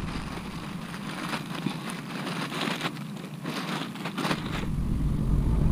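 Rustling and crackling from close handling, with scattered short clicks. A low rumble rises from about four and a half seconds in.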